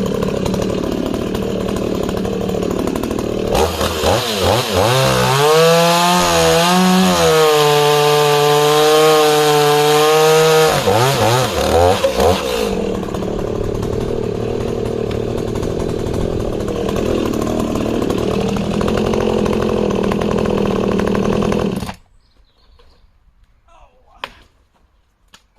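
Echo CS-5100 two-stroke chainsaw cutting wood. It revs up and holds high revs from about four to eleven seconds in, the pitch wavering as it works through the cut, then drops back to idle. About twenty-two seconds in the sound stops abruptly.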